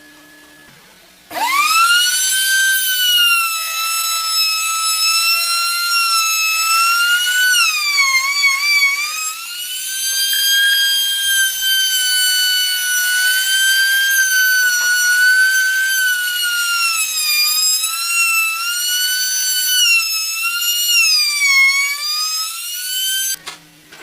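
A small electric power tool's motor whining at high speed. It starts about a second in and spins up quickly to a steady high pitch, dips in pitch now and then as it comes under load in the wood, and cuts off suddenly near the end.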